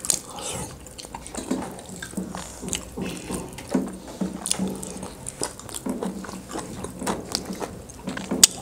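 Close-up eating sounds of several people eating soft millet dhido and curry with their fingers: wet chewing, lip-smacking and food squished by hand, in many small irregular clicks and smacks. A sharp click stands out near the end.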